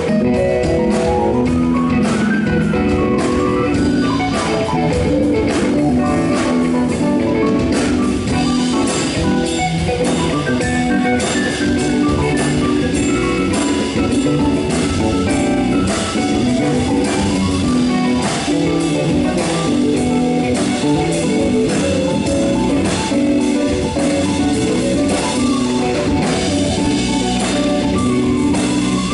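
Live jazz band playing: electric guitar, keyboard and drum kit, at a steady level throughout.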